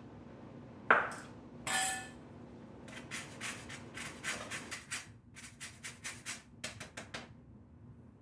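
A sharp knock about a second in, then a short ringing clink, as kitchen utensils are set down. Then a lemon is rubbed on a stainless steel hand grater, zesting it in quick scraping strokes, about four a second, for some four seconds.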